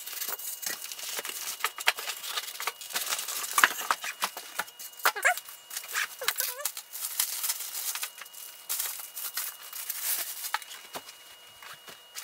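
Packing being handled: foam inserts pulled out of a cardboard box and a plastic bag crinkled off a UPS unit, with busy rustling and light knocks throughout and a few short squeaks about five to six seconds in.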